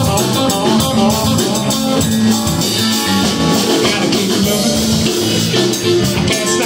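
Live rock band playing: electric guitar, electric bass and drum kit keeping a steady beat, with a man's voice singing in the second half.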